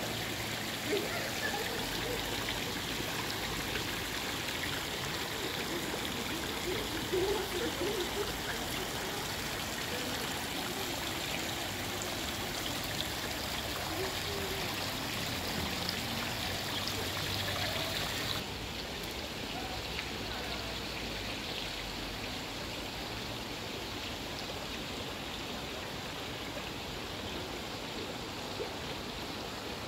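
Water pouring from stone spouts into a pond: a steady splashing rush like a stream. About eighteen seconds in, the sound changes abruptly to a duller, slightly quieter rush.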